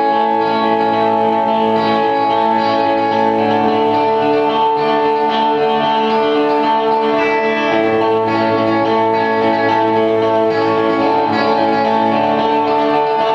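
Live electric guitars playing long, sustained ringing chords that hold steady, with no drum hits.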